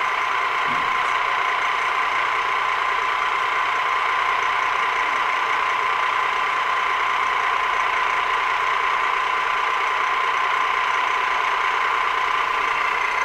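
Arboga geared-head drill press running with its power down feed engaged: a steady gear whine with a constant pitch.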